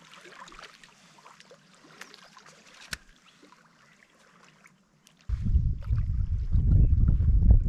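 Quiet open-air hush with one sharp click about three seconds in. About five seconds in, a sudden loud, rough low rumble of wind buffeting the microphone starts and keeps going.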